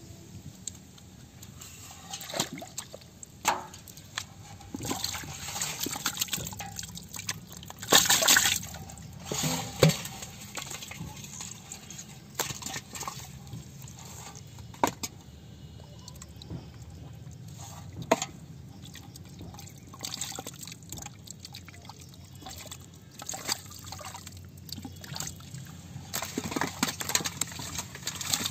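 Muddy water sloshing and splashing as catfish are handled and dropped into a steel bowl, with irregular wet slaps and knocks, the loudest a third of the way in.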